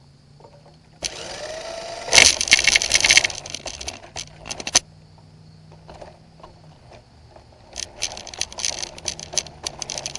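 Electric RC car running in bursts: its motor whines up about a second in, followed by loud clattering and rattling as it drives off, then a second burst of clattering near the end.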